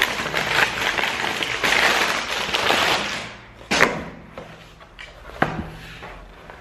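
Brown paper mailer bag crinkling and rustling as a cardboard box is pulled out of it, for about three seconds. Then two sharp knocks, the box knocking on the table.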